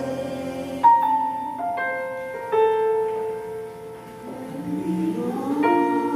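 Small mixed choir of women and one man singing a slow worship song over piano accompaniment, the notes held and changing every second or two, with a rising slide in pitch a little past the middle.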